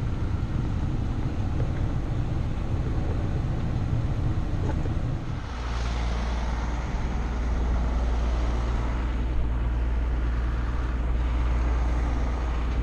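Fire truck engine running while driving, heard from inside the cab as a low, uneven rumble. About five and a half seconds in it changes to a steadier, deeper engine hum heard from beside the truck.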